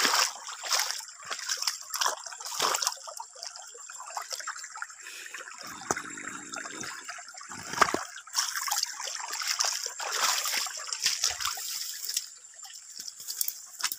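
Shallow stream trickling over stones, broken by repeated short splashes as someone wades through it, with water stirred by a hand reaching under a submerged rock about six seconds in.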